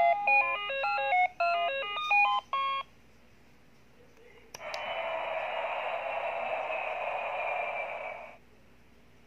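Battery-operated Little Tikes toy airplane playing a short electronic beeping tune of quick stepped notes. After a click about four and a half seconds in, it makes a steady rushing noise for nearly four seconds, which cuts off sharply.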